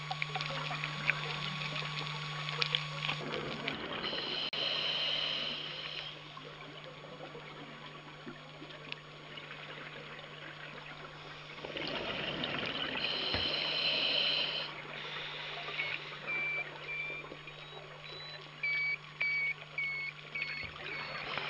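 Underwater ambience through a camera housing: a steady hiss and hum, with two surges of scuba regulator exhaust bubbles several seconds apart. A run of short high beeps comes near the end.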